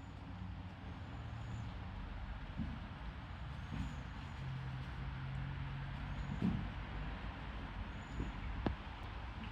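Chestnuts falling and hitting the ground with a few dull thumps, the sharpest near the end, over a steady low rumble.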